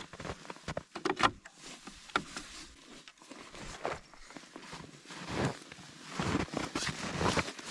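Footsteps crunching on snow, uneven and irregular, with a few sharper scuffs and knocks.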